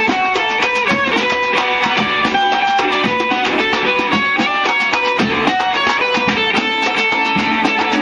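Instrumental music led by plucked guitar: a busy melody of short notes over strummed chords, at a steady, loud level.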